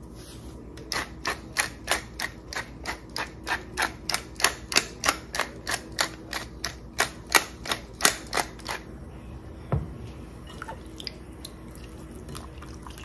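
Hand-twisted pepper grinder cracking peppercorns: a steady run of sharp clicks, about three a second, that stops about nine seconds in. Then a single thump, and faint handling sounds as hands mix raw chicken in the marinade.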